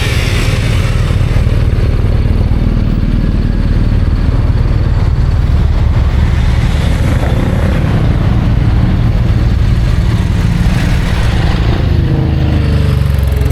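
Motorcycle engines running in a steady low rumble of traffic, with a few engines revving up near the end.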